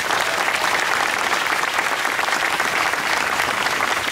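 Audience applauding steadily, a large crowd clapping together.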